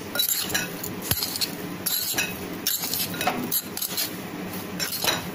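Blanched potato wedges being tossed and mixed in a plastic bowl, with irregular clinks and scrapes against the bowl.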